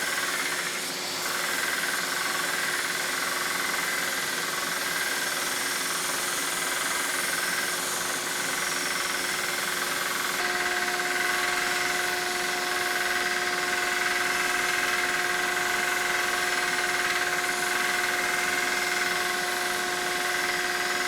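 Small electric belt sander running steadily while rough sanding plywood discs round to a marked line. A steady hum with a higher tone that joins about halfway through.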